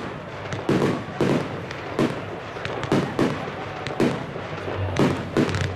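Aerial fireworks bursting: a run of sharp bangs, about one or two a second, some in quick pairs.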